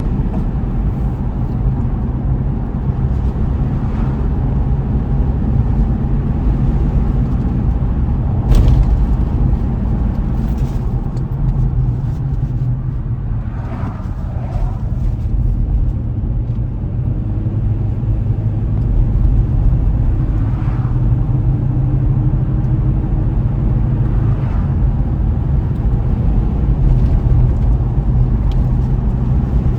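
Car driving along a road: a steady low rumble of engine and tyres, with one sharp knock about eight and a half seconds in.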